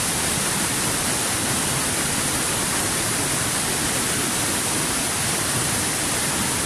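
Loud, even hiss of static-like noise with no pitch, rhythm or change in level.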